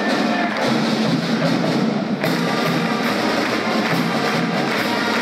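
High school pep band playing the school fight song, with drums keeping the beat.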